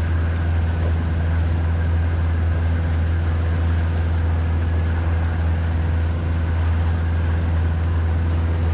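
Mercury outboard motor running steadily as the catamaran motors along, a constant low drone over the hiss of the churning wake water just below the stern.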